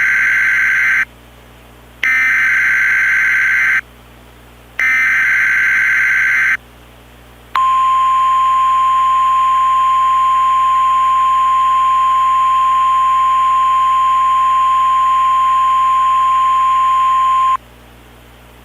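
Emergency Alert System alert from a DASDEC encoder: three screechy bursts of SAME header data, each lasting under two seconds, then a single steady attention tone held for about ten seconds. These signals announce the tornado emergency warning that follows.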